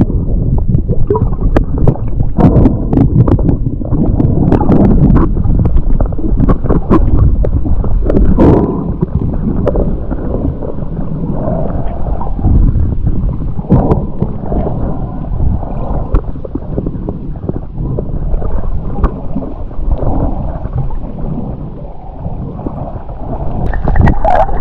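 Muffled underwater noise picked up by a submerged camera: water movement and gurgling with frequent small clicks and knocks, all dull and without highs. It grows louder near the end as the camera nears the surface.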